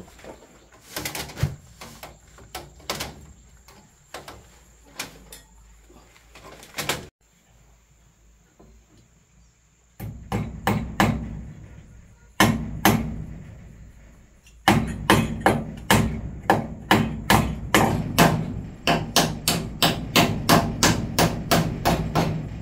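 Hammer blows: a few scattered strikes, then after a pause a steady run of rapid blows, about two or three a second.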